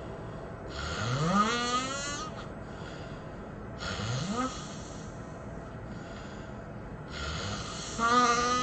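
A person snoring heavily in deep sleep. There are three snores a few seconds apart, each rising sharply in pitch as it is drawn in. The first and last snores are the loudest, and the middle one is short.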